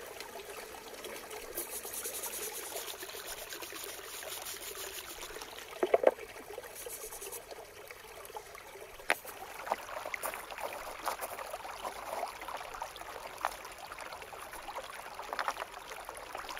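Water trickling and splashing in a shallow stream as river stones are washed in it by hand, with scattered sharp clicks and a louder burst about six seconds in.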